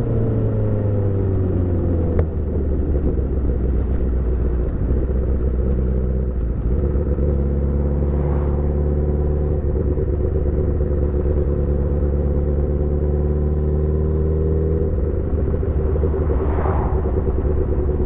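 Motorcycle engine running on the move, its pitch falling over the first two seconds, a sharp click just after, then holding a steady note.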